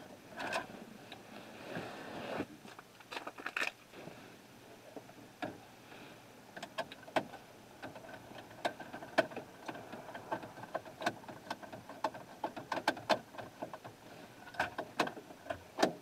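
Irregular small clicks, taps and light scraping of hands working a mounting screw and the aftermarket radio kit in the plastic dash radio opening, the clicks growing more frequent about halfway through.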